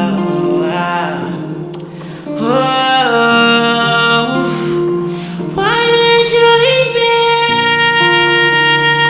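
Music: a song's intro, with long held melody notes that slide from one pitch to the next over a steady low bass note.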